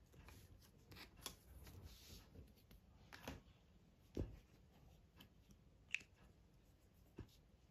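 Faint rustling of paper with a few scattered light knocks and clicks as a plastic ruler and pen are moved about on a notebook page. There is a dull knock about four seconds in and a sharp click about six seconds in.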